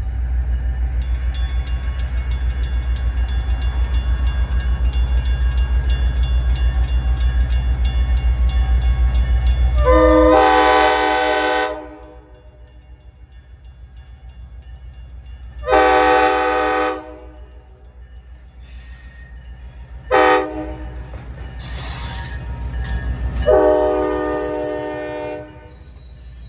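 Diesel locomotive engine rumbling as the train approaches. About ten seconds in, its air horn sounds four blasts, long, long, short, long, the standard signal for a road grade crossing.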